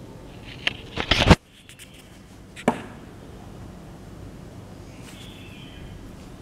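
Handling noise as the camera moves over the paper pages: a few rustles and knocks, loudest about a second in, which stop abruptly, then a single sharp click near three seconds and faint rustling later.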